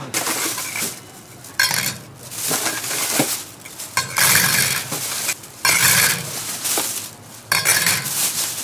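Stainless-steel hotteok presses set down one after another on a metal griddle: several sharp metal clanks and clinks.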